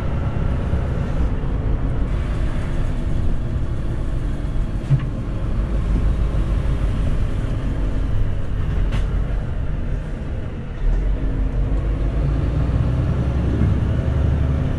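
Lorry engine and road noise heard from inside the cab while driving at low speed, a steady low drone with a couple of faint clicks. About two-thirds of the way through, the drone drops briefly and then picks up again.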